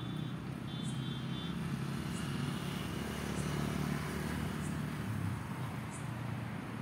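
Road traffic: a passing vehicle's low engine and tyre rumble that swells about halfway through and then eases. A faint high tick repeats about once a second.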